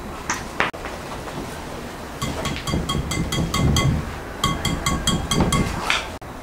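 Metal wire whisk beating a runny batter in a glass bowl, its wires clinking against the glass about five or six times a second in two spells, with a short pause about four seconds in.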